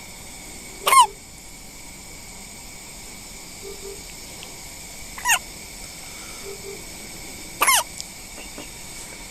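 A one-week-old premature newborn hiccuping three times, a few seconds apart; each hiccup is a brief squeaky chirp that falls in pitch.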